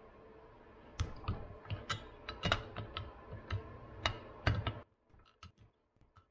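Click-type torque wrench ratcheting in a run of sharp, irregular clicks as the rocker studs on an aluminium cylinder head are tightened down to 45 ft-lbs. The clicking starts about a second in and stops shortly before the end, leaving only faint ticks.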